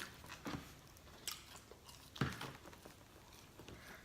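A person biting and chewing fast food, eating quickly, with a few louder bites or mouth sounds about half a second, one and a quarter and two and a quarter seconds in, the last the loudest.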